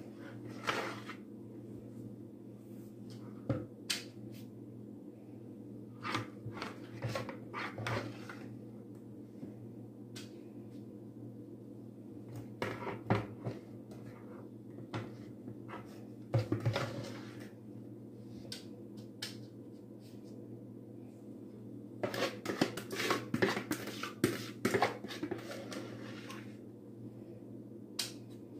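A spoon scraping and knocking against a plastic mixing bowl in short spells as batter is spooned into paper muffin cups, over a steady low hum.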